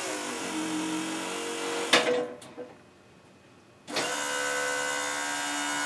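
Hydraulic pump motor of an exoskeleton whining as it drives a hydraulic cylinder that raises the chest armor, stopping with a clunk about two seconds in. It starts again about four seconds in and runs steadily as the armor is moved back.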